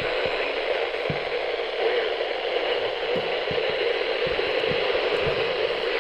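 Steady static hiss from a weather radio receiver, with a few short, faint low pops scattered through it.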